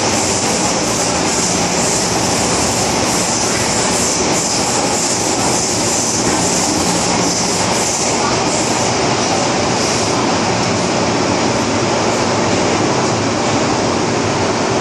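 MTR M-Train electric multiple unit running at speed, heard from on board: a steady, loud rumble of wheels on rail and traction motors. A high wheel squeal rides on top and eases after about ten seconds.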